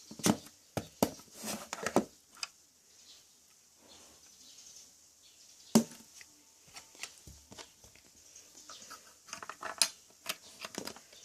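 Hard plastic clicks and clatters from a LEGO marble-dispensing machine being worked, in irregular clusters, with one louder knock near the middle.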